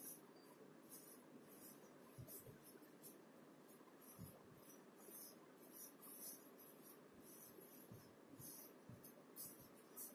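Faint marker pen writing on a whiteboard, a string of short, irregular scratchy strokes.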